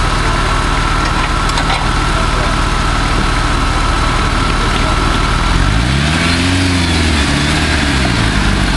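Engine of a caged short-wheelbase 4x4 trials vehicle idling steadily, then revved up and back down once a little over halfway through, with another smaller rev near the end as it pulls through the mud rut.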